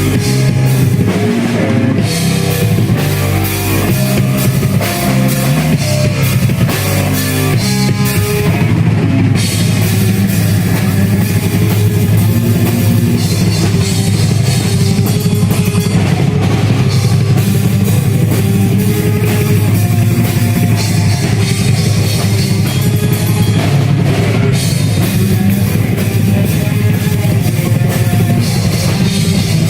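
Rock music with no singing: a band on drum kit, with bass drum, and guitar. For about the first eight seconds the band plays stop-start chords, then settles into continuous driving playing.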